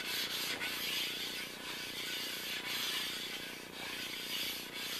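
An abrasive stone rubbed back and forth by hand along the cast-iron ways of an Atlas lathe bed: a gritty scraping that swells and fades with each stroke. The stoning knocks down the raised spots around dings in the ways.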